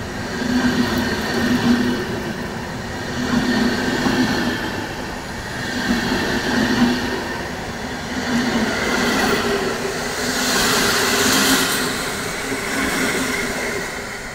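Passenger train coaches passing close by at speed, wheels and bogies rumbling on the rails in swells every couple of seconds. A surge of hissing wheel noise comes around ten seconds in. The sound drops away as the last coach passes near the end.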